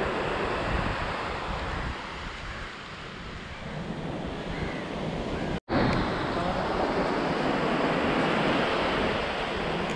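Sea surf washing onto a sandy beach, with wind blowing on the microphone; the sound drops out for an instant a little past halfway.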